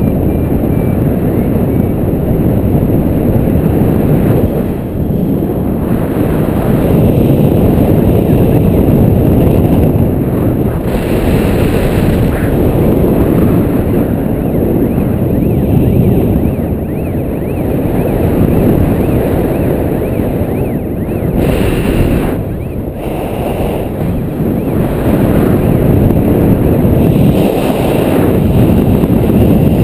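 Loud, steady wind noise on an action camera's microphone in paraglider flight, the airflow swelling and easing every few seconds.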